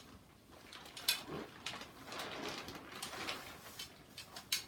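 Quiet handling sounds: fabric rustling and a few light clicks as a metal D-ring on the bladder is slid over the top tube of a telescoping tripod.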